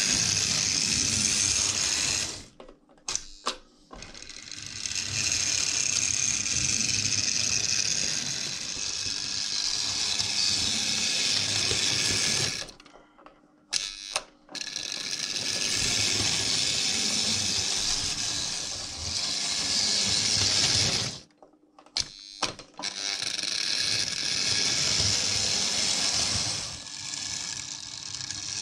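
Märklin 3091 BR 18 H0 model steam locomotive running on the track, its motor and gears making a steady mechanical whir. The running cuts out three times for a second or two, about three, thirteen and twenty-two seconds in, with sharp clicks in each pause as the transformer is turned to reverse the locomotive.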